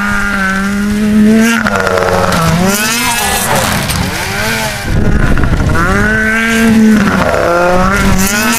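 Snowmobile engines running at high revs as sleds pass, the engine pitch holding high, then sagging and climbing again as the throttle is eased and opened, about two and a half seconds in and again near five seconds.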